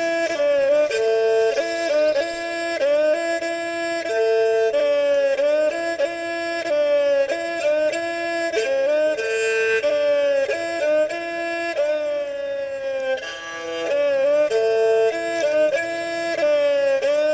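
Background music: a bowed string instrument playing a melody with sliding, bending notes over steady held notes.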